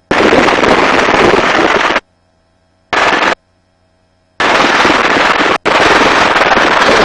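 Helicopter cabin noise picked up by an open headset intercom mic, loud, cutting in and out abruptly three times as the voice-activated intercom opens and closes, with dead silence between.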